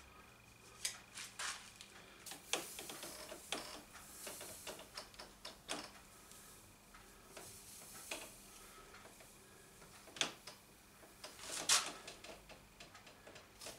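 A thin wooden strip handled and pressed by hand against a heated steel bending iron: irregular light clicks, taps and short scrapes of wood on metal, the loudest knock and rasp near the end.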